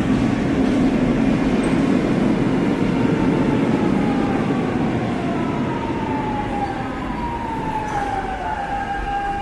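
Lisbon Metro train slowing down. The low running rumble eases off while a whine glides down in pitch, then holds on one steady tone near the end as the train nears a stop.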